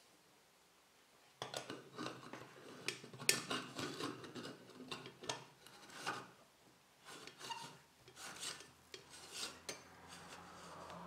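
Stainless steel moka pot's upper chamber being screwed onto its coffee-filled base: metal threads grating and scraping in short, uneven twisting strokes with a few sharp clicks, starting about a second and a half in.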